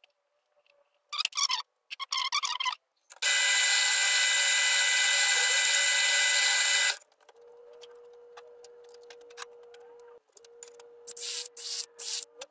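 Bench drill press boring holes into a pine block: a loud, steady whirring for about four seconds while the bit cuts the wood, then a quieter steady hum. A few short scratching sounds come before it, and more short bursts near the end.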